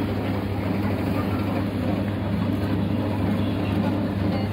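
Drive motor of a street fruit ice-cream machine turning its large ice-chilled drum, a steady low hum.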